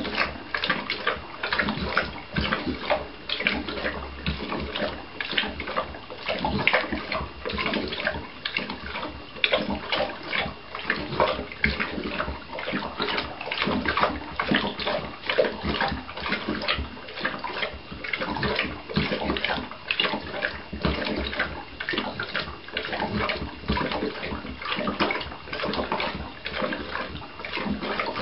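A seven-month-old Neapolitan mastiff lapping water from a stainless steel bowl, a continuous run of quick, splashy laps without a break.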